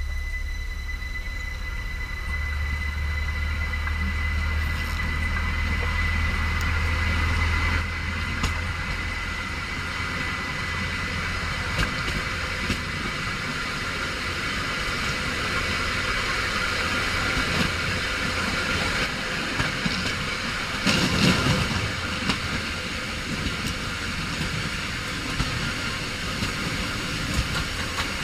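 A train running on the track with a steady rumble, and a thin high wheel squeal that fades away over the first ten seconds or so. There is a short louder rush about 21 seconds in.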